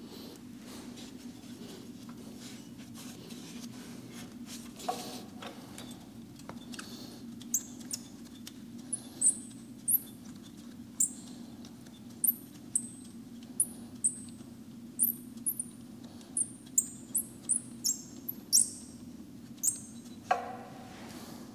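Exhaust header bolt on a Yamaha XSR 900 squeaking as it is worked loose: a series of about twenty short, high-pitched squeaks at irregular spacing, starting about eight seconds in. A knock near the end.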